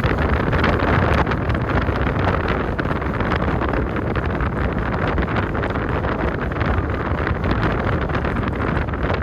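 Steady wind buffeting the microphone over the low rumble of a moving car.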